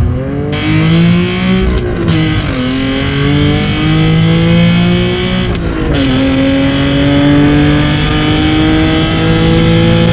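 Nissan 370Z Nismo's 3.7-litre V6, breathing through a valved exhaust, accelerating hard through the gears. The engine note climbs, drops at an upshift about two seconds in, climbs again, drops at a second upshift near six seconds, then climbs steadily.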